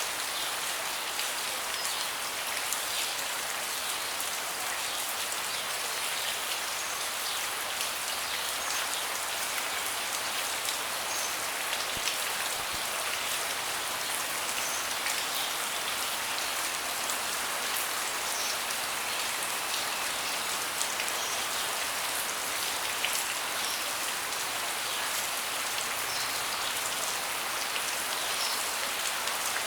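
Steady rain: an even hiss dotted with many sharp, close raindrop taps.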